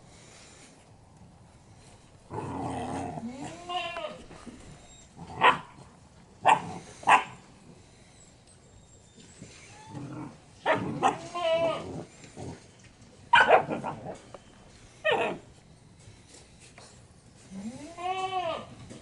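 Puppies yelping and whining as they play, in several short bursts of sharp yips and high, arching cries.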